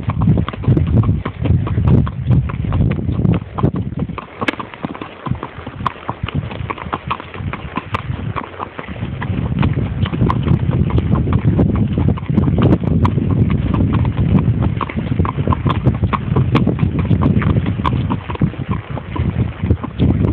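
Horse's hooves clip-clopping on a dirt trail, heard from the saddle, a continuous run of hoof strikes over a low rumble.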